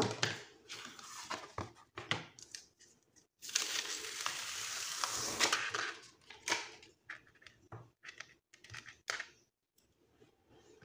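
Paper and plastic craft materials handled and rustling, with light taps and clicks and one longer rustle lasting about two and a half seconds from about three and a half seconds in.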